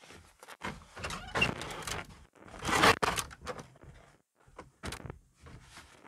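A wooden cabin door being opened and a person stepping in through it: a string of scuffs, rustles and knocks, the loudest a scraping rustle ending in a sharp knock about three seconds in.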